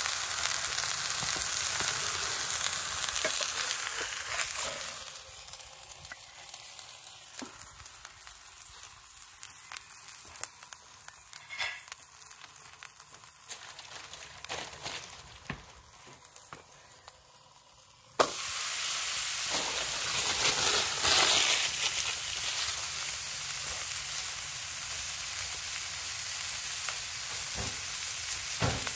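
Burger frying in the pan of a Trangia camp stove, a steady hiss of sizzling fat. About five seconds in it quietens to a softer sizzle with scattered pops and crackles, then comes back loud all at once just after eighteen seconds.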